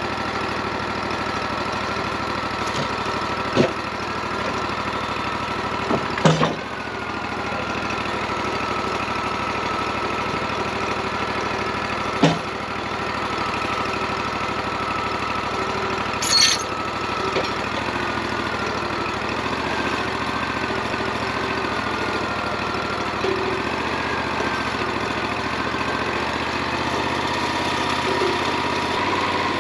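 Wood-Mizer LT40 portable bandsaw mill running steadily, with a few sharp knocks or clanks.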